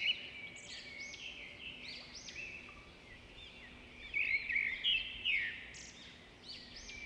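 Birdsong played through a smartphone speaker: many short, quick chirps and trills, busiest about four to five seconds in, cutting off suddenly at the end.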